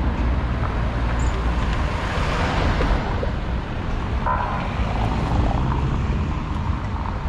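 Road vehicle noise: a steady low rumble under an even hiss.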